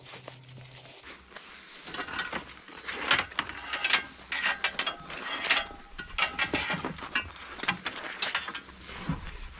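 Metal gear and wire rattling and clinking in irregular bursts as a wire-loop snare pole and tools are picked up and handled in a pickup truck's bed.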